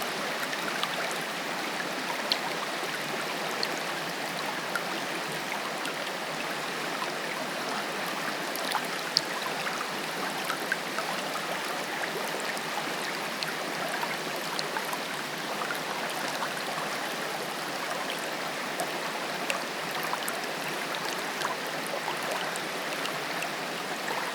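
Steady rush of falling and running water from a waterfall, with small splashes and droplet ticks scattered through it.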